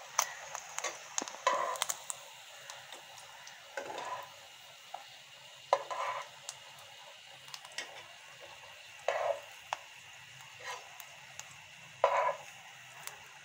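Egg-filled onion rings sizzling in shallow oil in a nonstick frying pan, with a metal spatula scraping and knocking against the pan every few seconds as they are lifted out.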